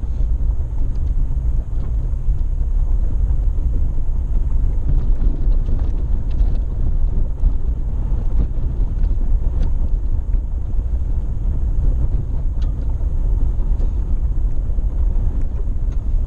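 Off-road vehicle driving a rough dirt mountain road: a steady low rumble of engine and tyres, with scattered light ticks and rattles.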